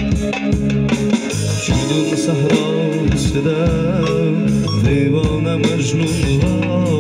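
Live band music played through PA loudspeakers: keyboards, a plucked string instrument and hand drums, with a man singing a sliding melodic line over them.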